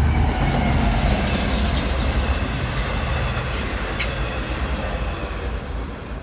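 Subway train running, a steady low rumble with wheel and track noise and a few brief sharp squeaks, fading out at the end.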